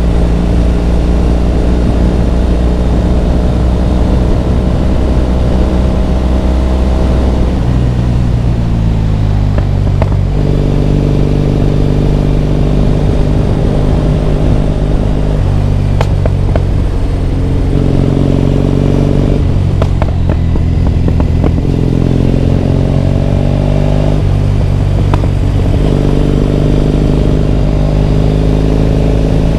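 Triumph Bonneville T100 parallel-twin motorcycle engine under way, pulling up through the revs and dropping back several times as it changes gear.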